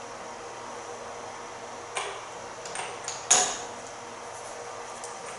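Sharp clacks of metal parts and tools being handled while a wheel is mounted on the car's hub. There are two louder knocks, about two seconds in and the louder one just past three seconds, with lighter taps between them.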